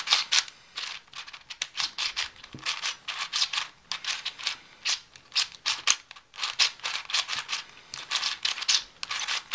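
Cube4You 3x3x7 cuboid puzzle turned rapidly by hand: a fast, irregular run of plastic clicks and clacks as its layers snap round.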